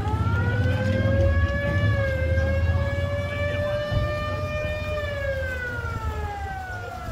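Police SUV siren sounding one slow wail: the pitch rises, holds for a few seconds, then falls away over the last couple of seconds, over a low rumble.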